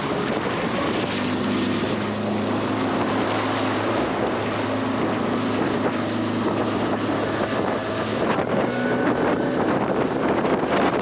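Mercury 50 outboard on a Stabicraft 1450 aluminium boat running steadily under way, with water rushing past the hull and strong wind noise on the microphone.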